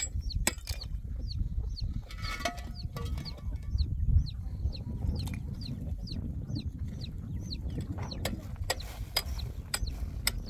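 Chicks peeping: a run of short, falling peeps, several a second, that stops about eight seconds in, over a low rumble with scattered sharp clicks, most of them near the end.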